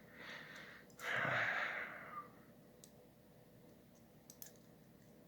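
A person lets out a long sigh about a second in, after a shorter breath, then only a few faint clicks of small objects being handled.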